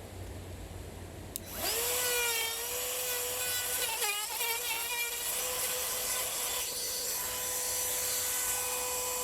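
Wood router switched on with a click about a second and a half in, spinning up to a steady high whine. The pitch wavers around four seconds in as the bit cuts a hinge mortise into the edge of a wooden door through a hinge template, then the router runs on steadily.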